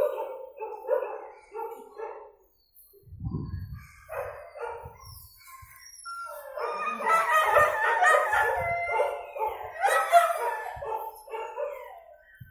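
Dogs barking: a few short barks at first, then many dogs barking over one another, loudest from about six to eleven seconds in. A low thump about three seconds in.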